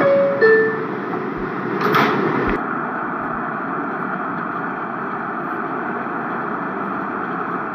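New York City subway door chime, two short tones stepping down in pitch, then the steady running noise of a subway train, with a brief clatter about two seconds in.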